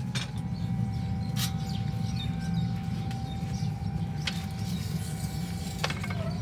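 Steady low hum of workshop machinery with a faint steady whine, broken by a few sharp clicks and a brief squeak near the end.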